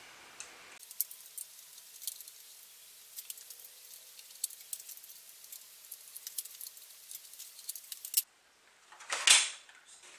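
Small, irregular metallic ticks and clicks as the bolts and screws of a Hangkai 3.6 hp outboard's lower engine cover are backed out by hand. Near the end, after a brief hush, one loud knock as the cover is worked loose.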